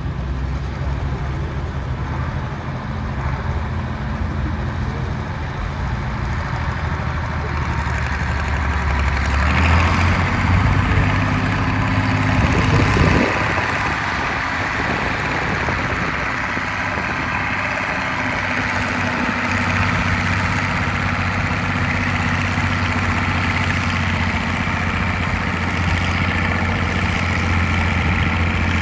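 Case 970 farm tractor engine working hard under heavy load while pulling a sled, labouring. About ten seconds in the engine gets louder and its note rises, dips briefly a few seconds later, then holds a steady, strained note.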